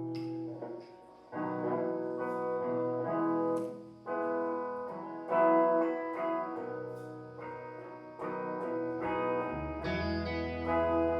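Guitar playing the instrumental intro of a blues-rock song, slow ringing chords changing every second or two; a low bass note joins near the end.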